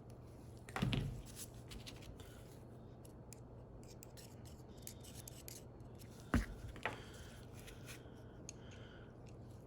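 Small hand-handling noises of ratchet parts and tools on a workbench: scattered light clicks and scraping, with a sharper knock about a second in and another about six and a half seconds in.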